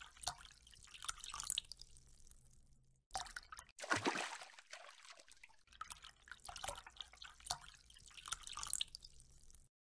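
Water sound effects for a cartoon fishbowl: small drips and bubbly plinks, with one louder splash about four seconds in. The sound stops just before the end.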